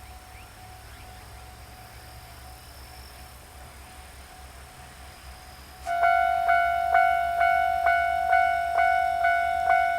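Japanese railway level-crossing alarm, its normal sound, starting about six seconds in. It rings a repeating ding about twice a second, each strike fading before the next, and warns that a train is approaching. Before it starts there is only a faint steady background.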